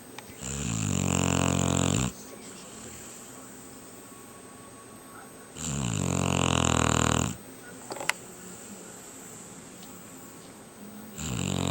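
Shar-Pei dog snoring in its sleep: three long snores about five seconds apart, each lasting a second and a half or so, the last starting near the end. A short click falls between the second and third.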